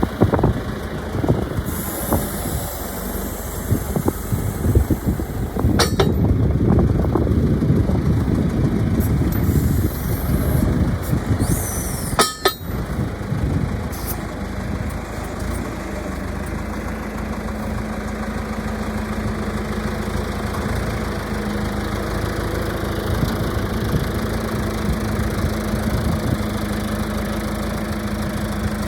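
John Deere 310-A backhoe's engine running, louder and rougher through the first half with two sharp clicks, then settling to a steady idle from about halfway through.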